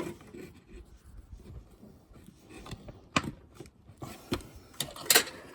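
Needle-nose pliers working a fuel line onto its fitting: quiet rubbing and handling with scattered sharp clicks, the sharpest a little after five seconds in.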